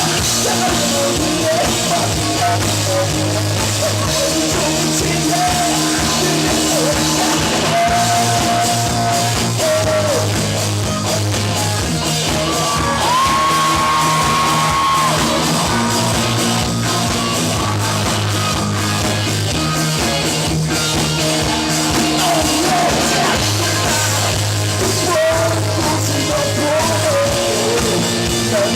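Live rock band playing loud and steady, with a singer's voice over drums and electric guitars, and a long held high note about halfway through.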